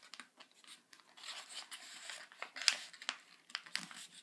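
Sheet of paper rustling and being pressed into a fold by hand on a wooden desktop, with a few sharp little clicks and taps in the second half.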